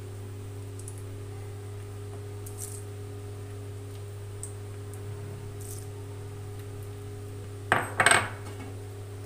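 Pumpkin seeds dropped by hand onto a sticky nut-and-syrup mixture in a steel plate, giving a few faint light ticks over a steady low hum. About eight seconds in there is a short burst of metallic clinking against the steel plate, the loudest sound.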